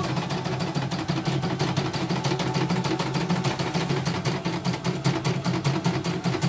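CNY computerized embroidery machine stitching a design at speed, with a fast, even stitch-by-stitch clatter over a steady motor hum. It is running a test pattern normally after the repair that cured its blank, unresponsive fault.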